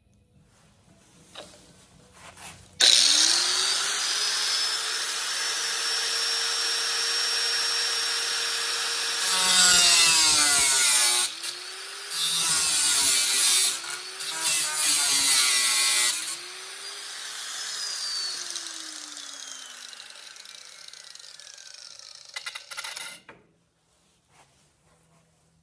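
Handheld power tool, most likely an angle grinder, spinning up, then cutting metal in several bursts, its motor pitch dropping under each cut. It then winds down slowly after release, its tone falling over several seconds.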